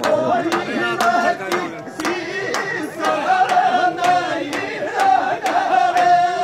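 Rajasthani dhamal: male voices singing a chant-like folk song to a chang, a large frame drum, beaten about twice a second, with long held notes in the singing.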